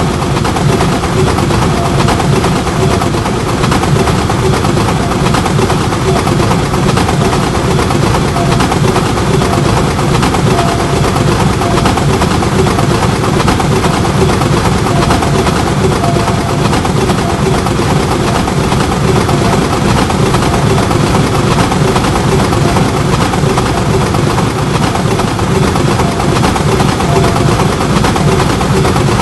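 Train running past at close range: a loud, steady rumble of engine and wheels on the rails, with a faint tone coming and going.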